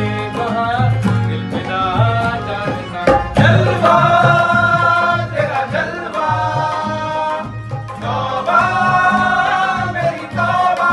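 Men singing a Hindi patriotic song with long held notes, accompanied by harmonium and guitar.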